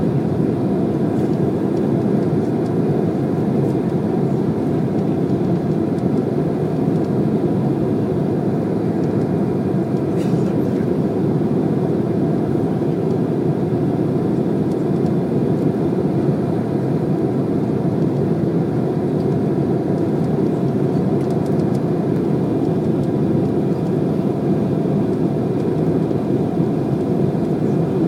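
Steady engine and airflow noise inside an airliner cabin on final approach.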